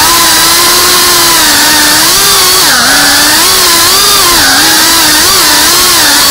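FPV racing quadcopter's electric motors and propellers whining, the pitch holding steady at first and then rising and falling repeatedly as the throttle changes.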